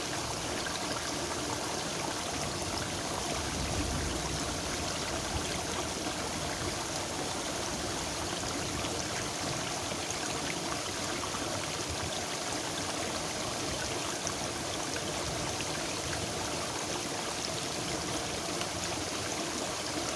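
Water running steadily in a small rice-field irrigation ditch, an even rushing trickle.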